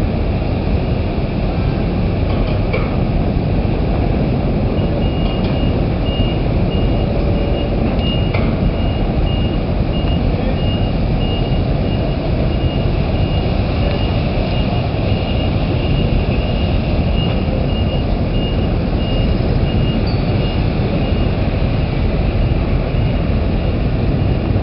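A reversing alarm beeps over and over, starting about five seconds in and stopping near the end, over a loud, steady low rumble.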